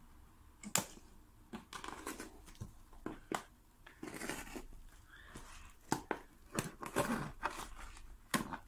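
Serrated knife slicing and scraping through packing tape on a cardboard box, in short, irregular strokes.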